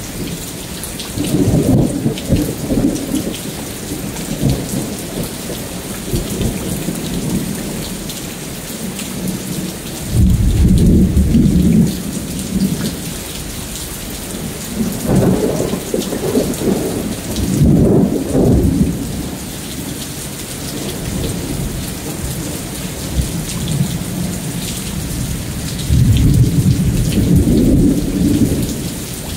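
Thunderstorm: steady rain falling, with thunder rumbling four times, about a second in, around ten seconds, a longer roll from about fifteen to nineteen seconds, and again near the end.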